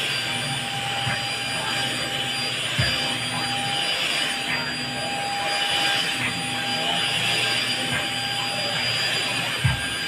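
Deerma electric anti-dust handheld vacuum cleaner running steadily over a fabric sofa, a constant rushing motor noise with a steady whine. There are a couple of short low thumps, about three seconds in and near the end.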